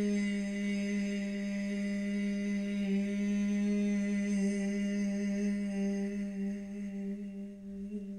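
A woman's voice humming one long, steady note as the qigong healing sound for the liver. It eases a little in loudness near the end.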